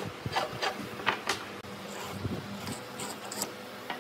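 Pine boards being handled on a wooden workbench: a series of light, irregular wooden knocks and rubbing, the loudest about a second in.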